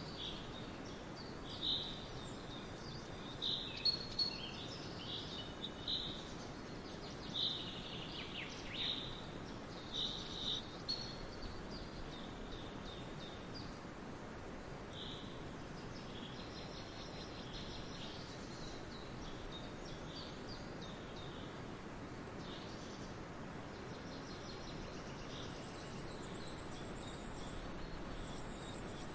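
Forest ambience: small birds chirping in short high calls, many in the first ten seconds or so and sparser after, over a steady faint hiss. A thin high buzz comes in near the end.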